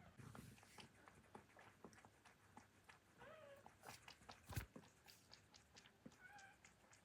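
A cat gives two short, soft meows, about three seconds in and again near the end, among scattered small clicks and one sharper knock just past halfway.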